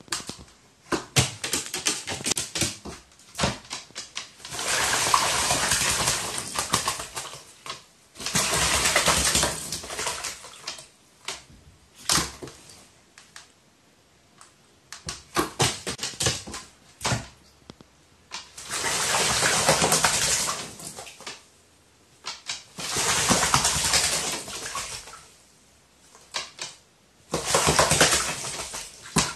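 Pet crow splashing and flapping its wings in water, in about five bursts of a second or two each, with scattered sharp taps and clicks between them.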